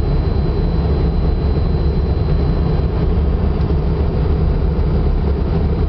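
Steady low rumble of an airliner's engines and airflow on a landing approach, heard from inside the aircraft, with a faint thin high whine that fades out about halfway through.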